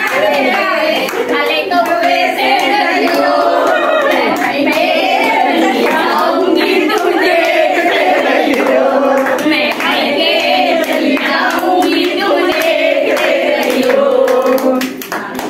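A group of women singing a song together while clapping their hands in time.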